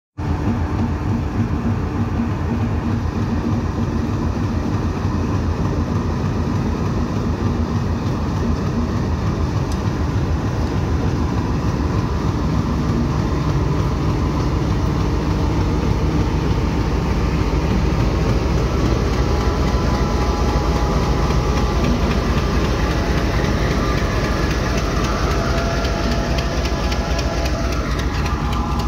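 BED-30 class diesel-electric locomotive standing at a platform, its engine running with a steady low drone. About two-thirds of the way in, higher steady tones join and the sound grows slightly louder.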